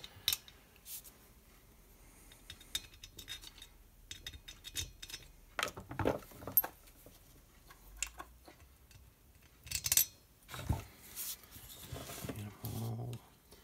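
Scattered small metallic clicks and clinks: T27 Torx cylinder screws and a screwdriver being handled as the screws are started into a chainsaw cylinder.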